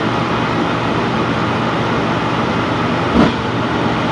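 Propane furnace running with its burner lit: a steady rumble and hum. There is a brief louder bump about three seconds in.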